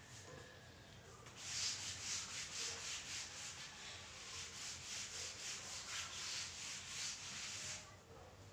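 Whiteboard eraser wiping marker writing off a whiteboard in quick back-and-forth strokes, about three a second. The scrubbing starts a little over a second in and stops near the end.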